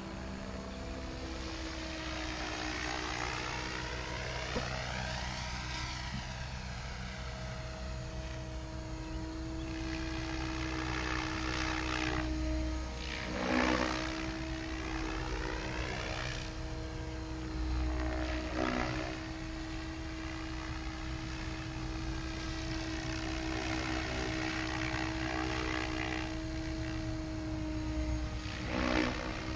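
Goblin 700 radio-controlled helicopter flying overhead: a steady whine from its rotors with a whooshing sound that shifts up and down in pitch as it moves about. The sound swells briefly three times, a little under halfway through, just past halfway, and near the end.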